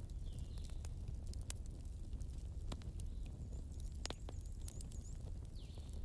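Crackling wood fire in a fireplace: a steady low rumble with scattered sharp pops and crackles, and a few faint high chirps.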